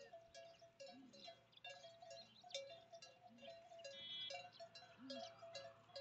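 Faint ringing of bells, two notes alternating in a steady repeating pattern with light high clinks.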